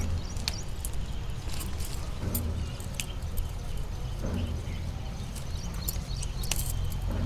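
Leaves rustling and scattered small snaps and clicks as green chillies are picked by hand from a potted chilli plant.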